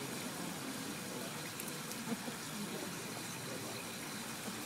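Faint murmur of a crowd's chatter over a steady hiss, as people gather and wait.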